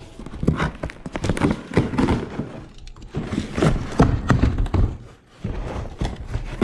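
Cardboard shipping box being opened by hand: packing tape ripped off and the cardboard flaps knocked and scraped, a dense run of irregular knocks and rustles.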